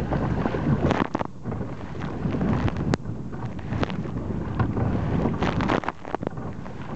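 Wind buffeting the microphone over waves slapping and splashing against a sit-on-top kayak's hull in rough, wind-driven water. Sharp splashes stand out about a second in and in a cluster near the end as spray comes over the bow.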